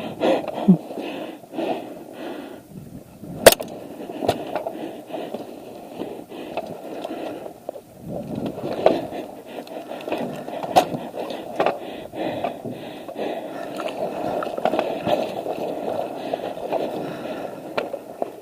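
Continuous scuffing and rustling of someone moving on foot with gear, with a few sharp clicks, the loudest about three and a half seconds in.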